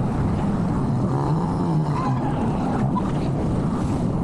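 Small motor of a bump boat running steadily under way, a continuous low drone.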